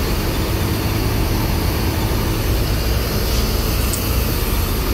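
Parked diesel tour coaches idling close by: a steady low engine rumble with a wash of mechanical noise over it.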